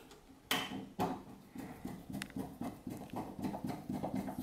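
Hand screwdriver driving screws into the metal switch box: two sharp clicks, then a fast run of small ticks as the screw is turned.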